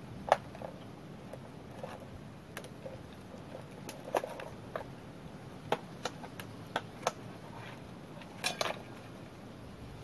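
A blade cutting and peeling bark from a standing tree trunk: irregular sharp clicks and snaps, the loudest just after the start and a quick double near the end.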